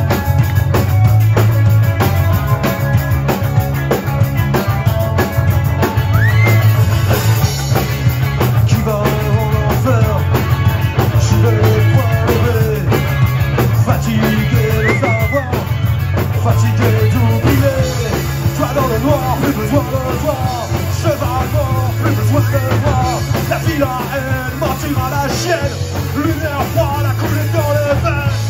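Live rock band playing loud: electric guitar, bass guitar and drum kit, with a man singing into the microphone from about six seconds in.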